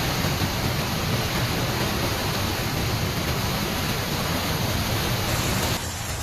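Steady, loud rushing noise of a rainstorm: pouring water and wind. It gives way to a quieter scene near the end.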